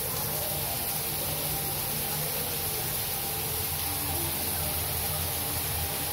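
Overhead rain showerhead with air-induction spray running, a steady hiss of falling water.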